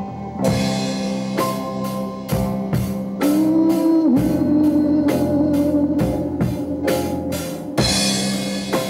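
Heavy metal band playing: a drum kit keeping a steady beat of drum and cymbal hits about two to three a second under distorted guitar and a held note, coming in together about half a second in.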